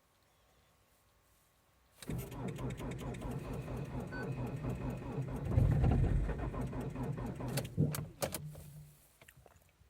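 Starter motor cranking a frozen Ford Focus 2.0 TDCi four-cylinder turbodiesel: a rhythmic cranking that begins about two seconds in, swells near the middle and cuts off after about six seconds without the engine catching. This is a cold-soaked diesel being hard to start in deep frost.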